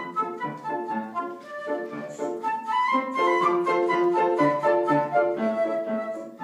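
Concert flute playing a quick melody of separate notes, with grand piano accompaniment.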